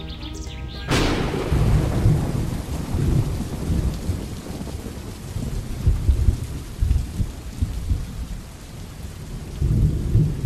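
Thunderstorm: steady rain hiss with several low rolls of thunder, starting suddenly about a second in.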